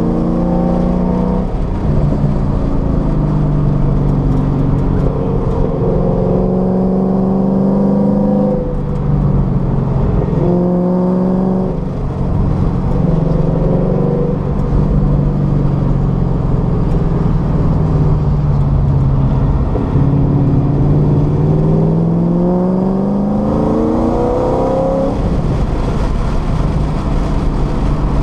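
Car engine heard from inside the cabin during hard track driving: the revs climb and fall again and again through gear changes and lifts, with a long rise in pitch near the end as it accelerates.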